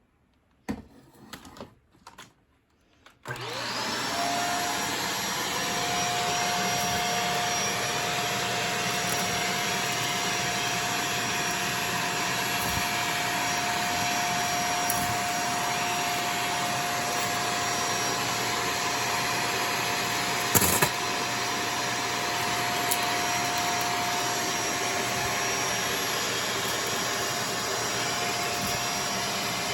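Shark DuoClean vacuum cleaner switched on a few seconds in: its motor spins up with a rising whine, then runs at a steady pitch. A few clicks come before it starts, and there is a sharp knock a little after the middle.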